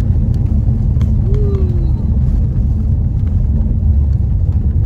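Steady low rumble of a car on the road, heard from inside the moving car, with a faint steady hum.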